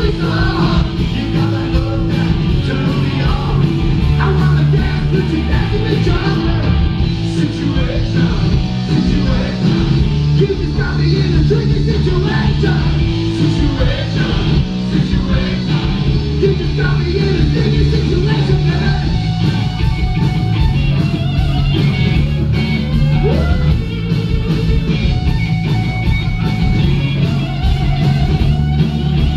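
Punk rock band playing live: distorted electric guitars and drums driving a fast song, with a singer's vocals over the top, heard from the crowd at a club show.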